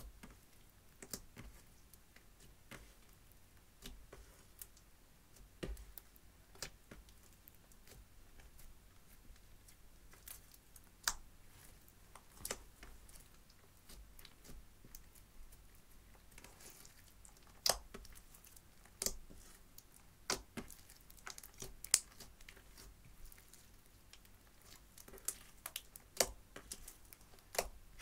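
Clear slime mixed with crushed eyeshadow powder being kneaded and folded by hand: irregular sticky clicks and pops as it is pressed and pulled apart, with quiet between them.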